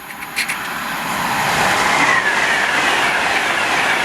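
Class 390 Pendolino electric train running past on the line: the wheel and rail noise builds over the first second, then holds steady. A faint falling whine comes about two seconds in.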